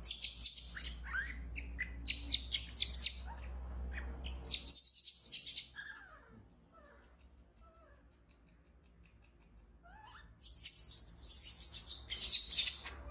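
Baby pig-tailed macaque crying: two bouts of rapid, shrill screeches, the first lasting about five seconds and the second starting about ten seconds in, with a few faint chirping calls in the quieter stretch between.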